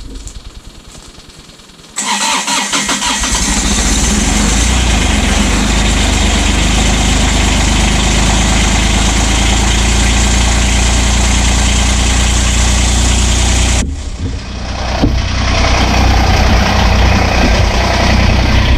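A tractor engine starts up suddenly about two seconds in and then runs steadily. Near the end the sound breaks off abruptly and picks up again.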